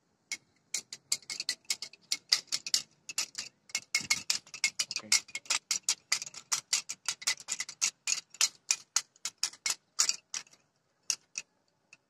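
A rapid, irregular run of hard clicks, several a second, that thins out to a few scattered clicks near the end.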